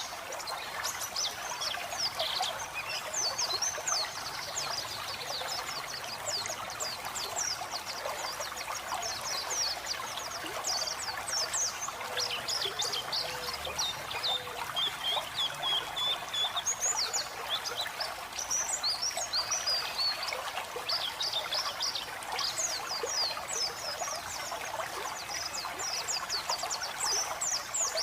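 White-eyes (pleci) twittering in quick, high chirps and short trills, almost without a break, over steady trickling running water.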